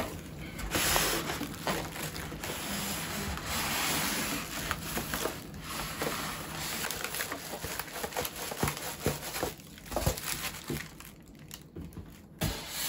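Cardboard box and polystyrene foam packing rustling and scraping as an espresso machine is slid out of its box, with plastic wrapping crinkling and small knocks.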